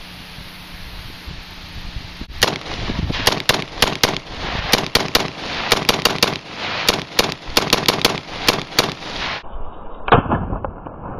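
Palmetto State Armory AR-15 with a Jerry Miculek muzzle compensator firing semi-automatically: about twenty sharp shots in quick succession, some as fast doubles, starting a couple of seconds in and stopping near the end, with one more shot after a short pause.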